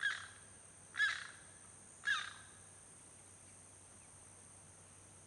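A bird calling three times, about a second apart, each call short and loud.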